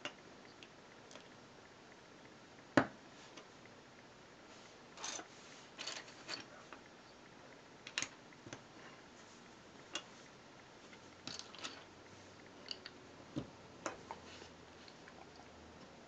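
LEGO plastic bricks being handled and pressed together: scattered faint clicks and light rattles, the sharpest click about three seconds in.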